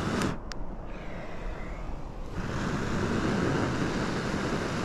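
A person blowing hard and long on a smouldering tinder bundle to coax the ember into flame, a rushing breath noise. One blow ends just after the start; after a pause of about two seconds a second long blow runs for about three and a half seconds. The tinder is smoking but will not catch.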